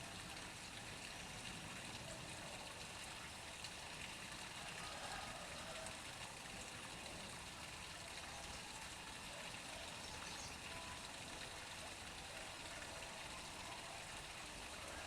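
Water from a pump pouring into a pond: a steady, even trickling flow.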